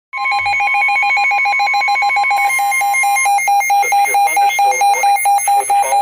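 NOAA weather radios going off together for a Severe Thunderstorm Warning: loud, rapid alert beeping, with a steady tone near 1 kHz, the weather radio warning alarm tone, that stops about halfway through. A second beep pattern joins a little before halfway, and the broadcast voice begins under the beeping in the second half.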